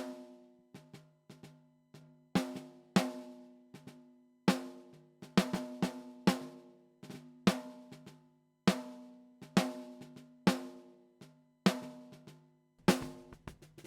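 Acoustic drum kit recording playing a slow groove: separate kick and snare hits, each leaving a ringing pitched tail, with a quicker flurry of hits near the end.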